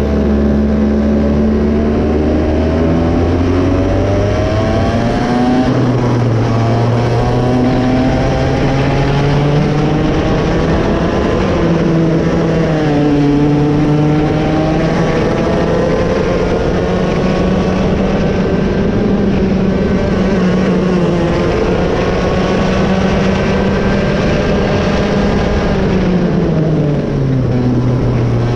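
Raket 120 two-stroke kart engine running hard at high revs. Its pitch climbs and drops several times as the kart speeds up and slows, with sharper drops about halfway through and near the end.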